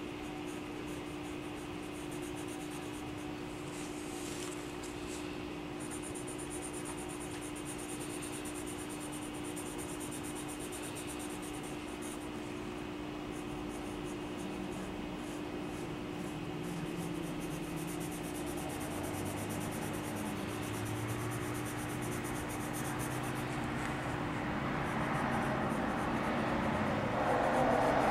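Colored pencil scratching across paper in small shading strokes, over a steady low hum. It grows louder toward the end.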